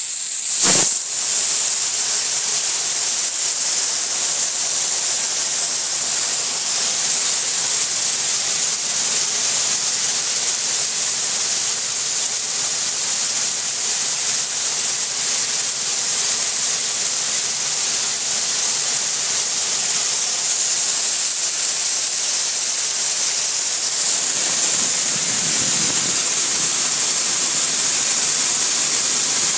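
High-pressure water jets from a nine-jet sled-type sewer sand-removal nozzle (Nuova Contec Magredi) spraying, a steady loud hiss. There is a brief louder burst under a second in.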